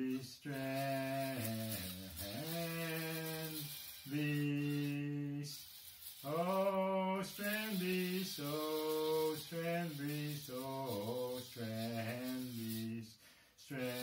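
A man's voice singing slow, long-held notes in a chant-like style, with short breaks between the notes.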